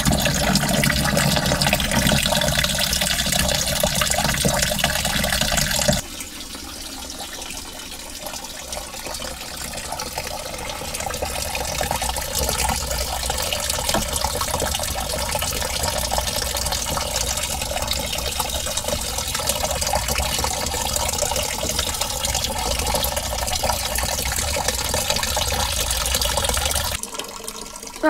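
Tap water running into the plastic wash tub of a Gizmos TG910 twin-tub portable washing machine as it fills. The sound is steady, drops suddenly about six seconds in, then slowly grows louder again.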